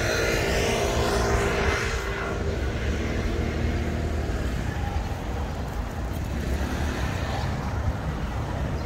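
A motor vehicle passes close by, loudest in the first two seconds. After it comes the steady low rumble of city street traffic.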